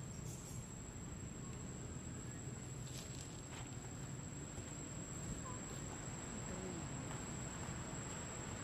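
Outdoor ambience: a steady, high-pitched insect tone over a low rumble, with a couple of faint rustles about three seconds in.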